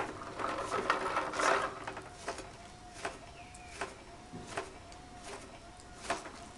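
Small electric motor turning the rotating bristle brush of a leaf-collecting machine, with a faint whir that rises and falls in a steady cycle and a sharp click about every three-quarters of a second. A louder rustling scrape fills the first couple of seconds.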